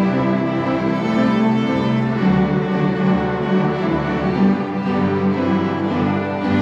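Primary school string ensemble playing together: violins and cellos bowing sustained notes and chords without a break.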